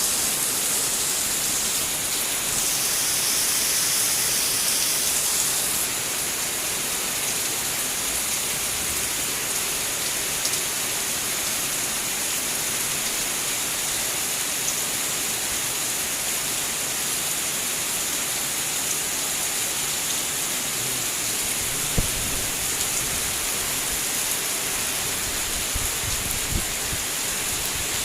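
Heavy rain pouring down in a steady, dense hiss, with a few brief low knocks in the last few seconds.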